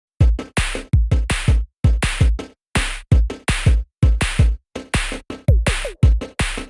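Electronic background music with a drum-machine beat: deep kick drums and snare hits in a steady rhythm, with short silent gaps between hits.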